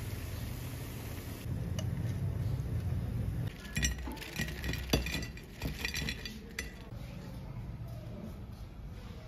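Hot oil sizzling around frying pakoras briefly at first, then a series of sharp clinks as a wire strainer knocks against a ceramic plate while the fried pakoras are tipped onto it.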